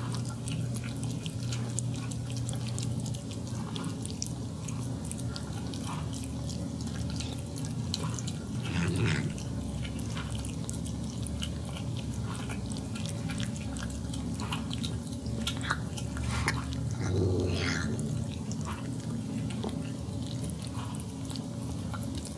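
Cat eating wet food chunks in gravy: rapid wet licking, smacking and chewing clicks, with louder smacking about nine and again about seventeen seconds in.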